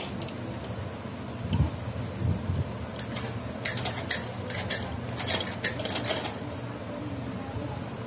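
Irregular sharp clicks and light clatter as cloth is positioned under the needle of a domestic sewing machine, with most of the clicks coming in a cluster about three to six seconds in. A steady low hum runs underneath.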